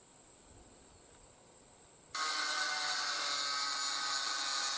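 Faint steady insect chirring, then about two seconds in an angle grinder with a cut-off disc starts cutting steel, a loud steady whining grind that carries on.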